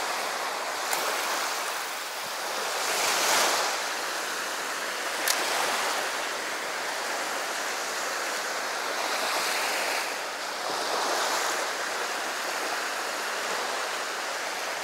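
Small waves washing up onto the sand at the shoreline, swelling and easing every few seconds. Two sharp clicks come about a second in and about five seconds in.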